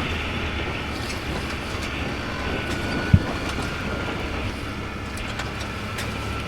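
Vehicle driving, a steady low engine hum under road noise with faint rattling clicks, and one sharp low thump about three seconds in.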